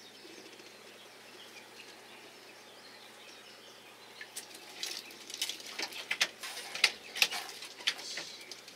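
A fish being handled in a rubber-mesh landing net. The first half is quiet; then, from about halfway, come irregular sharp clicks and wet slaps as gloved hands work the fish, the loudest near the end.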